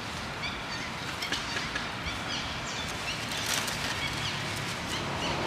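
Outdoor woodland ambience: a steady hiss with scattered short, high bird chirps and the light crackle of dry leaves being handled by a foraging macaque.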